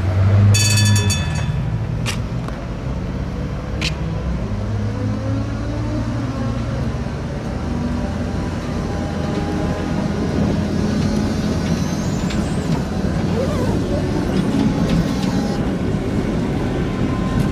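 Tram running with a steady low hum, its motor whine rising in pitch about 11 seconds in. A short, high electronic beep sounds about half a second in, and there are a couple of sharp clicks a few seconds later.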